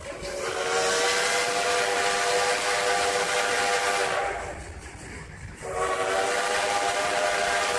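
The 1880 Train's steam locomotive whistle blows two long, steady blasts with a short break about four seconds in. The second blast is still sounding at the end.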